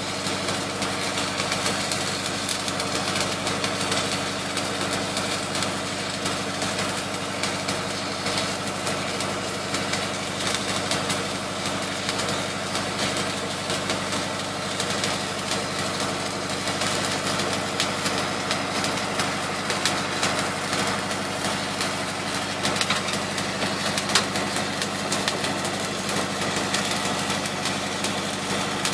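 Flux-cored arc welding on a steel pipe repair sleeve: the arc crackles and hisses steadily over the even drone of an engine running.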